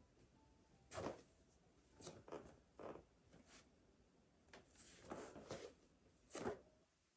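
Soft rustling and brushing of clothing against a mat, in about half a dozen short bursts over a faint room hiss, from a person performing full prostration bows.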